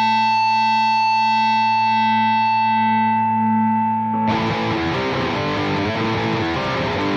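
Distorted electric guitar holding a sustained chord that slowly thins out, then about four seconds in the band breaks into a busier, loud rock section.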